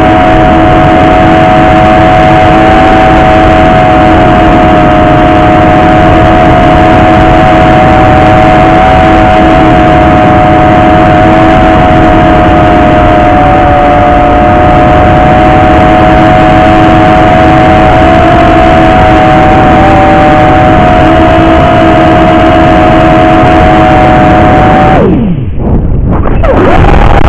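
Small quadcopter drone's electric motors and propellers whining, recorded by the drone's own onboard camera: two close steady tones over a loud rushing noise from the props. Near the end the whine drops steeply in pitch and almost cuts out, then rises again as the motors spin back up.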